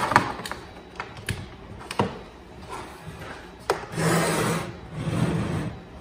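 Handling noise: several sharp clicks and knocks, then two stretches of rubbing and scraping, as a microwave oven and its power cord are handled.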